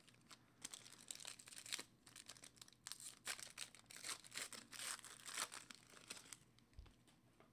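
Foil basketball card pack being torn open and crinkled by hand: a string of quick crackles lasting about six seconds that stops near the end.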